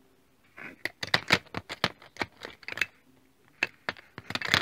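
Hot Wheels die-cast toy cars clicking and clattering against each other and a clear plastic storage case as they are handled. A quick, irregular run of sharp clicks starts about half a second in.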